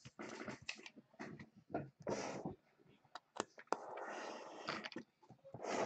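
Hands handling a closed aluminium card case on a wooden table: several sharp clicks, most of them three to four seconds in, with some rubbing and shuffling between them.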